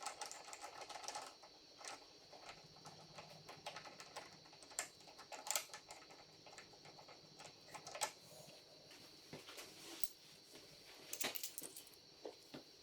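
Faint, scattered light clicks and taps of metal parts being handled and set in place: handlebar risers and their mounting brackets being fitted.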